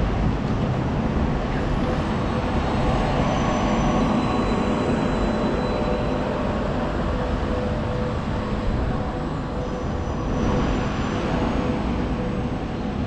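Steady traffic noise on a busy city street, with red double-decker buses on the road.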